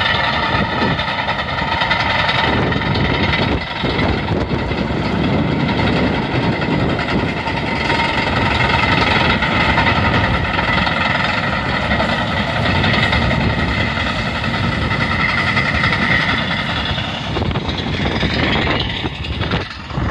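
Caterpillar tracked bulldozer running: a steady engine sound with a high, steady whine over it, breaking up near the end.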